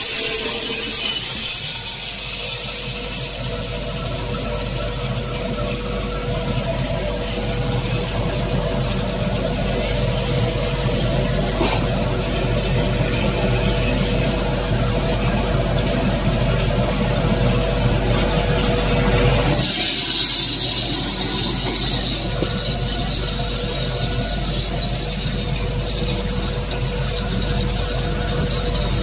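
Corn peeling machine (dehuller) running steadily: a constant mechanical noise with a steady hum.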